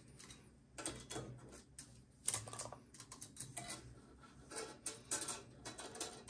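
Light, irregular clicks and rattles of a steel tape measure blade being handled and held against a metal drill press table.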